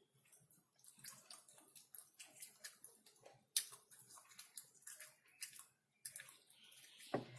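Close-miked eating of chicken: irregular wet clicks and smacks of chewing, with a sharper click about three and a half seconds in.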